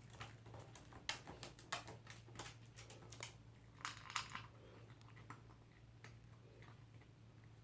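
Scattered light clicks and ticks from a toy poodle at its food bowl, with a short rustling burst about four seconds in.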